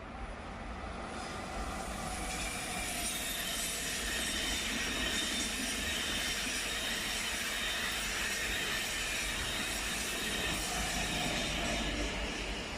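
Passenger train running on the tracks, growing louder over the first two seconds and then holding steady, with a thin high squeal from the wheels.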